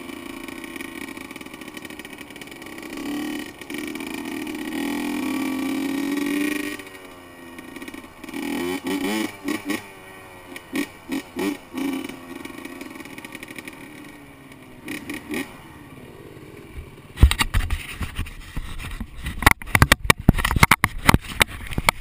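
Two-stroke Honda CR85 dirt bike engine running at low speed, with a run of short throttle blips about eight to twelve seconds in before it settles lower. Over the last five seconds loud knocks and crackles hit the microphone over the engine.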